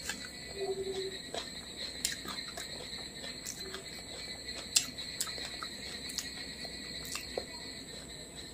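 Close-miked eating by hand: scattered sharp mouth clicks and smacks while chewing rice and fried fish, with fingers working the rice on the plate. One louder click comes about halfway, all over a steady high-pitched whine.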